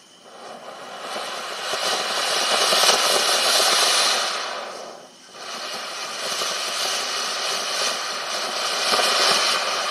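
Winda 'Eruption' 1.4G ground-fountain firework spraying with a loud, steady rushing hiss. It builds up over the first couple of seconds, dies down briefly about five seconds in, then surges back and keeps going.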